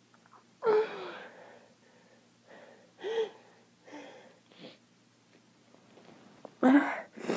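A person sneezing again and again from allergy: a string of sudden voiced bursts with gasping breaths between them, the loudest near the end.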